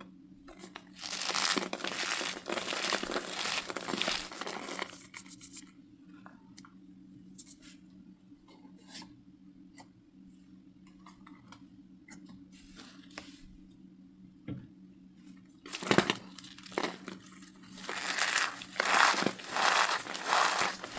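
Packed cornstarch being crushed, a dense crunching that runs for a few seconds, gives way to scattered faint crackles, then comes back loud in a series of crunches near the end.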